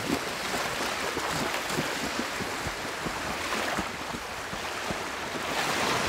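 Small sea waves washing over the shallows at the water's edge, a steady wash that swells a little near the end, with feet splashing through shallow water at the start as a person runs into the sea.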